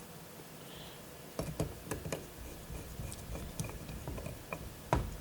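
Scattered light clicks and taps of a motherboard and small parts being handled and settled into a NUC chassis, with a sharper knock near the end.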